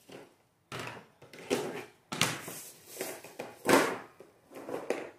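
Irregular rustling, scraping and light knocks from handling a large potted plant and its support pole, in uneven bursts, loudest a little past halfway.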